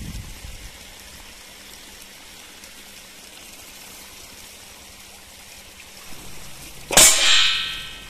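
Water trickling steadily, then about seven seconds in a single loud metallic clang that rings on for most of a second: a water-driven see-saw crop scarer tipping over and its arm striking the metal pot set beneath it.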